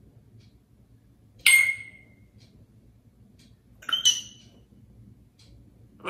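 African grey parrot making two sharp, clinking pings like a glass being tapped, about two and a half seconds apart; the first rings on briefly as a single clear tone.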